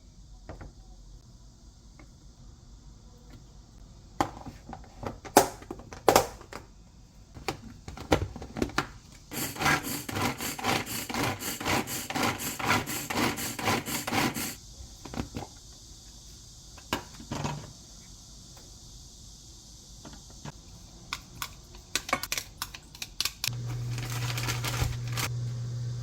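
Kitchen prep on a wooden cutting board: scattered knocks and clatter, then about five seconds of rapid, even knife chopping. Background music comes in near the end.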